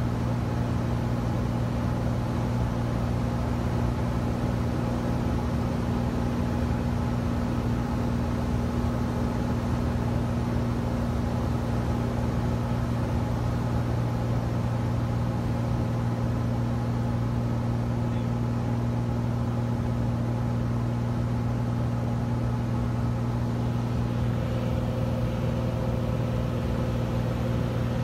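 Cessna 172's single piston engine and propeller running steadily in flight, heard inside the cabin as an even low hum with a haze of wind and airframe noise. A faint higher hum joins near the end.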